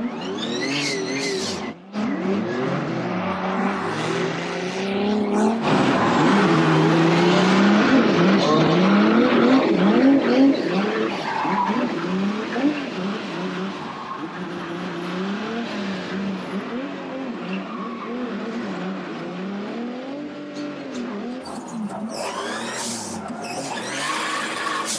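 A car engine revving up and down over and over while the tyres squeal and skid, as in drifting. There is a brief break about two seconds in, and a sharp rise in revs near the end.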